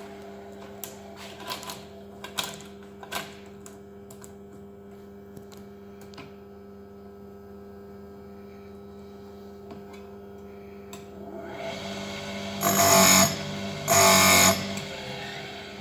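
Electric chainsaw-chain sharpening grinder running with a steady hum, a few light clicks in the first few seconds, then two short, loud bursts of grinding near the end.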